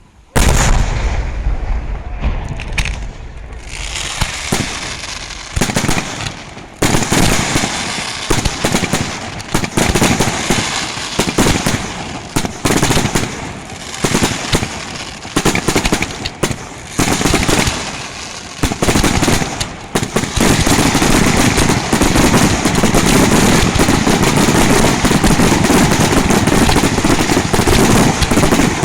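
Fireworks display: a sudden loud bang just after the start, then rapid, dense cracking and bursting of shells and firecrackers. About two-thirds of the way through, it merges into a continuous, unbroken barrage.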